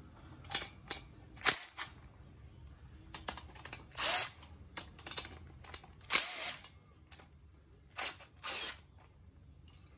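Cordless ratchet spinning the cylinder-head nuts off a VW Beetle 1600 dual-port engine in short bursts, about eight brief whirs. The nuts are already loose, so each one spins off quickly.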